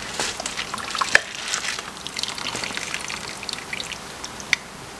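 Broth trickling and dripping off a slotted spoon back into a slow cooker as vegetables are scooped out, with small splashes and sharp clicks of the spoon, the loudest about a second in and another near the end.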